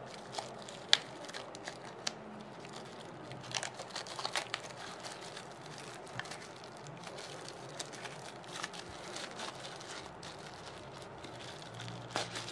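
Crinkling and crackling of a thin white protective wrap being handled and pulled off a small camera by hand: scattered sharp crackles, the sharpest about a second in, with a busier stretch around four seconds and a few more near the end.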